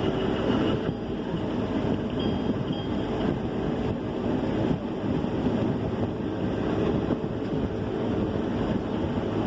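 Combine harvester running steadily while cutting wheat: an even mechanical drone with a faint steady hum underneath.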